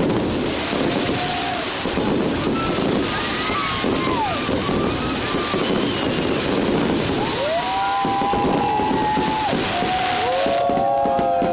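Fireworks display: a dense, continuous crackling with dull bangs. Several long, high tones rise and hold over it from about halfway through to the end.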